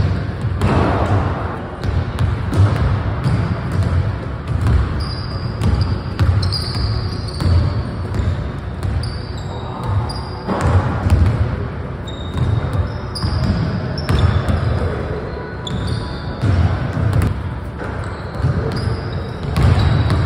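Basketballs bouncing on a hardwood gym floor in irregular thuds, with short high sneaker squeaks in between, in a large hall.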